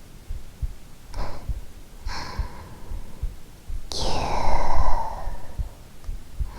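A woman's long, breathy sigh close to the microphone about four seconds in, after two softer breaths, over the soft low thumping of her recorded heartbeat.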